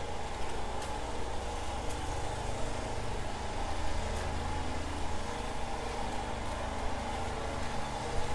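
A steady engine hum, even throughout, with a few faint clicks.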